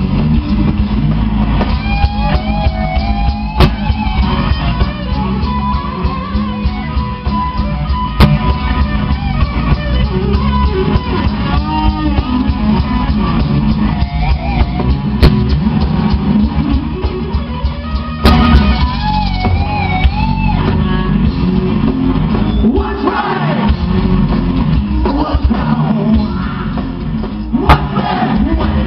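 Live rock band playing loud, with distorted electric guitar, drum kit and a lead singer shouting and singing over it.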